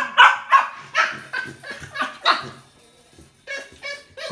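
Small white long-haired dog barking rapidly, about three sharp barks a second through the first two and a half seconds. After a short pause it gives a string of shorter, quicker yips near the end.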